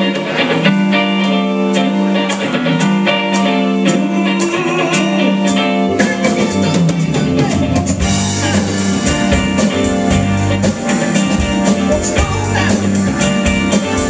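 Live rock band playing an instrumental passage: electric guitars and keyboard over a steady drum beat, with the low end filling out about six seconds in.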